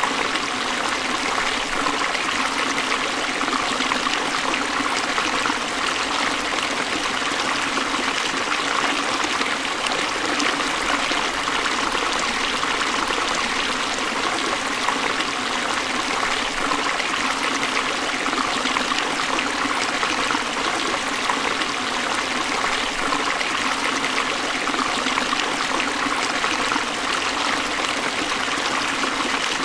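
Forest stream flowing over rocks: a steady rush of water with trickling, unchanging throughout.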